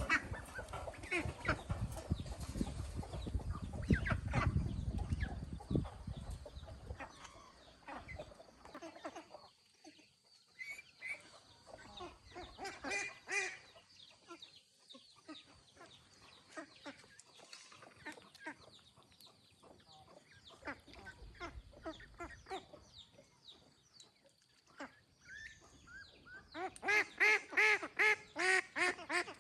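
Ducks quacking irregularly, ending in a loud run of about ten quick quacks near the end. A low rumbling noise sits under the first several seconds.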